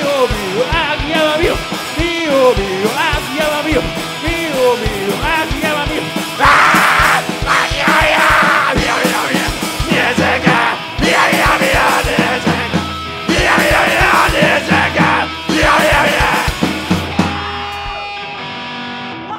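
Rock band playing live: a singer over distorted electric guitar and drums with a steady kick-drum beat. The singing stops about six seconds in and the band plays on in loud, heavy blocks, then the song winds down to a held chord that fades near the end.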